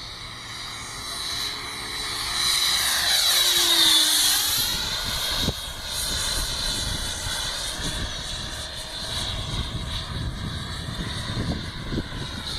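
Radio-controlled Zagi flying wing's 90 mm electric ducted fan on 8S, a jet-like whine, making a close fly-by: it swells to its loudest about four seconds in, the sound sweeping as it passes, then settles into a quieter, steady whine as it flies on.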